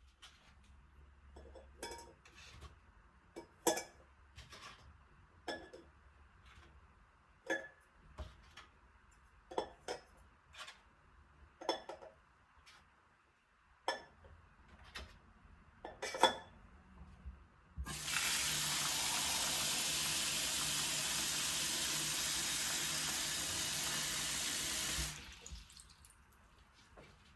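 Light clinks and knocks of dishes and utensils, then a kitchen tap runs steadily for about seven seconds and stops.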